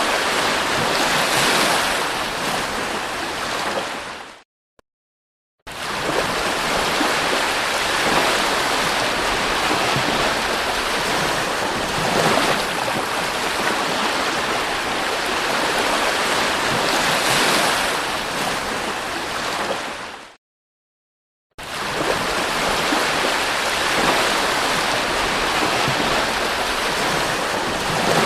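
Sea waves breaking and washing on the shore, a steady rush that swells and eases every few seconds. It cuts to dead silence for about a second twice.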